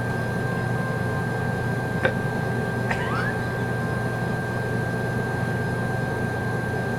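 Steady mechanical hum and hiss with a thin, steady high-pitched whine over it. A single click comes about two seconds in, and a short rising squeak about three seconds in.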